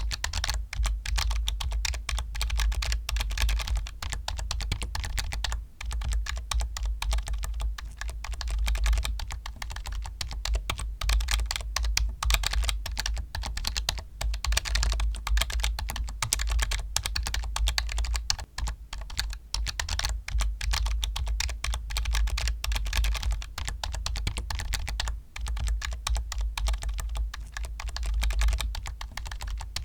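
Computer keyboard being typed on fast and without pause: a dense, unbroken stream of key clicks with a low thud beneath them.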